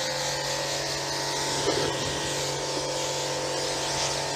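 Electric pressure washer running steadily, its motor humming under the hiss of the water jet spraying a car.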